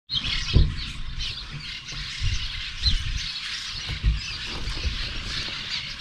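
Many birds chirping and calling at once, short overlapping calls with no pause, with a few low thumps underneath.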